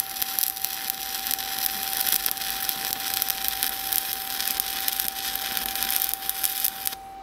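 Stick-welding arc of an E7018 1/8-inch coated electrode laying a vertical-up bead: a steady crackle that cuts off abruptly about seven seconds in as the arc is broken.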